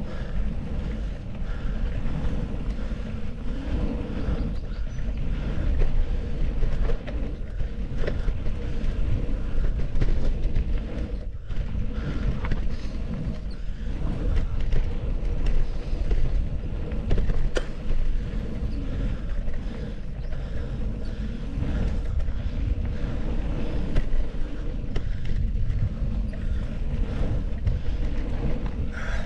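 Mountain bike descending a dirt trail: knobby tyres rumbling over the dirt and wind rushing on the microphone, with frequent small clicks and rattles from the bike.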